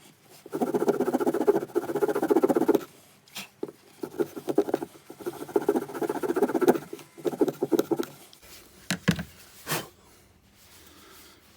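Saw teeth on the spine of a Broc Tracker knife rasping rapidly back and forth through green wood, cutting a notch, in three spells of a couple of seconds each. Two sharp knocks follow near the end.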